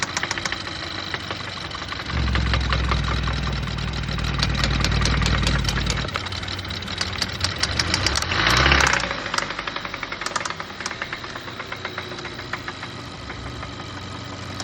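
Car engine running with a fast, regular knock on every revolution: rod knock, the sign of a worn connecting-rod bearing and an engine that is finished. The engine runs louder from about 2 to 6 seconds in, with a brief louder surge just past the middle.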